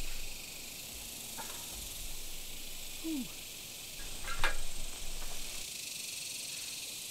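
Steady high-pitched insect drone outdoors in summer heat. A brief low falling tone comes about three seconds in, and a short sharp sound, the loudest moment, comes just after four seconds.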